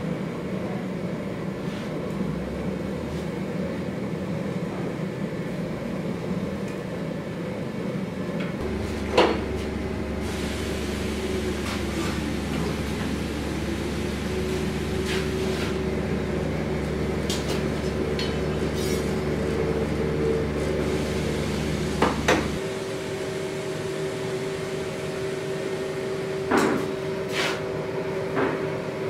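Gas-fired forge running steadily with a hum. A deeper rumble is added for about fourteen seconds in the middle, and a few sharp metal clinks and knocks come through.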